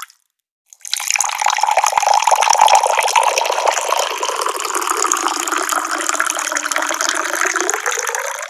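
Water pouring steadily from a tap in a continuous splashing stream. It starts up about a second in after a brief silence and breaks off sharply at the end.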